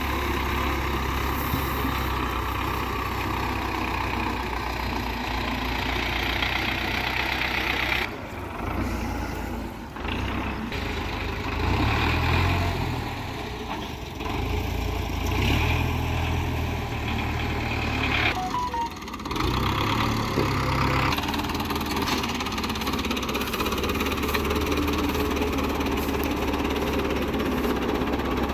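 Belarus tractor's diesel engine running steadily, the note dipping and changing briefly a few times.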